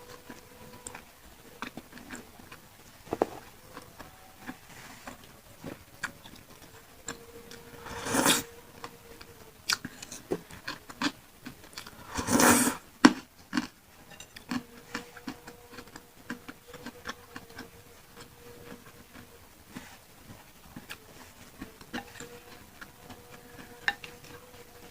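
Close-miked eating of pentol (Indonesian meatballs) in chili sauce: soft wet chewing clicks and smacks throughout, with two louder, longer noisy sounds about eight and twelve seconds in.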